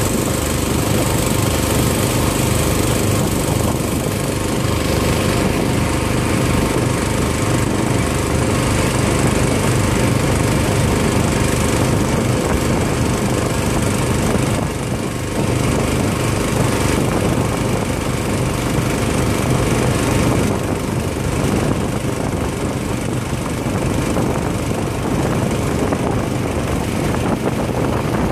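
Small motorboat's engine running steadily at speed, with the wake churning and rushing along the hull.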